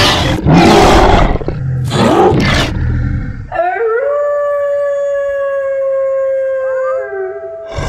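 Werewolf sound effect: three loud, harsh roars in the first few seconds, then one long howl that rises at its start, holds on one pitch and breaks off about seven seconds in.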